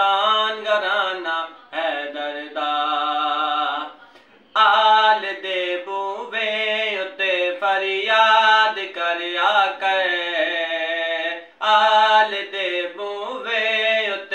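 A man singing a Punjabi naat solo, with no instruments, in long held notes with wavering ornaments. He breaks for breath about four seconds in and again near the end.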